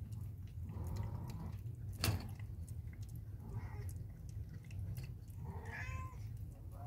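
Persian mother cat licking and chewing at her newborn kitten and its umbilical cord, soft wet sounds over a steady low hum. A sharp click comes about two seconds in, and a faint short mew near the end.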